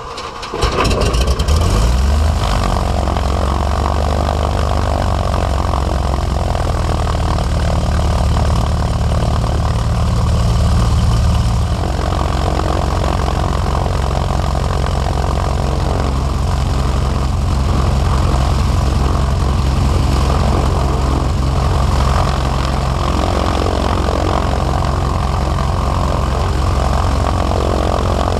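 Light single-engine piston airplane's engine catching after the starter, revving up over a second or two as the propeller spins up, then running steadily. The engine speed steps down about twelve seconds in, and the engine idles on.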